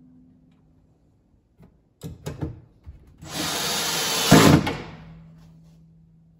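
A few knocks, then a cordless drill driving a short screw through a metal drawer slide rail into the cabinet side, running for about a second and a half and loudest just before it stops.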